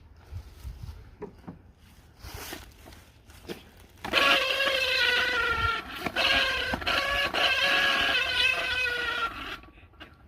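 Faint handling clicks, then about four seconds in an old air-conditioning cooling fan, spun by hand, sets up a loud squeal of several held pitches that waver slightly, like a rubber chicken. It breaks off briefly once and stops shortly before the end.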